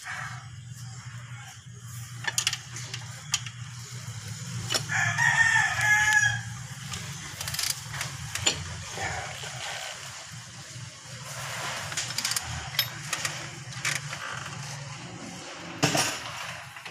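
A rooster crowing once, about five seconds in, the loudest sound, with a fainter call later. Around it come scattered metal clinks of a wrench working the belt tensioner bolt, over a steady low hum.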